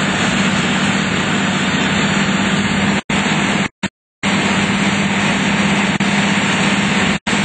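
Large engine of fire apparatus running steadily with a constant low hum and a hiss over it. It cuts out abruptly about three seconds in, again for about half a second around four seconds in, and briefly near the end.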